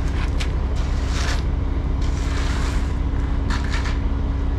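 Diesel engine of a concrete mixer truck running steadily with a low drone, with a few short noises about a second in and again near the end.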